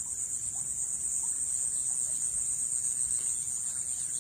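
Steady, high-pitched chorus of insects with no break, and a few faint short chirps now and then.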